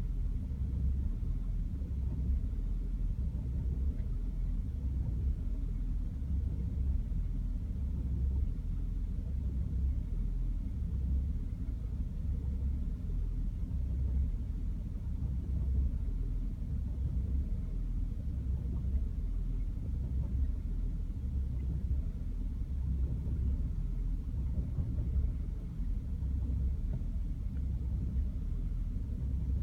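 BMW E60 530i's N53B30 3.0-litre inline-six idling roughly: a low, steady-speed engine note with irregular, uneven pulses, the sign of the rough idle the owner is recording.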